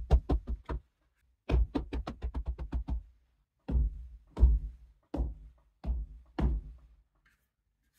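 A series of knocks as a board is tapped into place in wet clay at a window reveal. There are a few quick knocks, then a fast run of about a dozen, then slower single knocks about two-thirds of a second apart.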